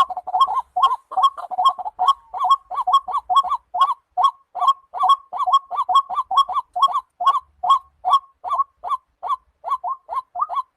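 A bird calling: a short note pitched around 1 kHz, repeated steadily about three to four times a second, the notes spacing out a little toward the end, then stopping suddenly.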